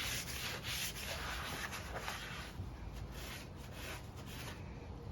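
Irregular rubbing and scraping strokes as dirt is cleaned off a lawn mower engine's carburetor mounting area by hand.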